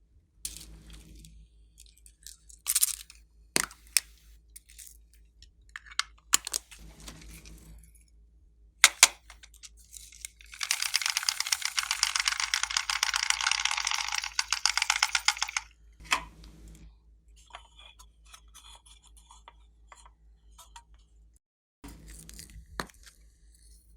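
Hands squishing and stretching slime: scattered sticky clicks and pops, then a dense run of fast crackling pops lasting about five seconds near the middle.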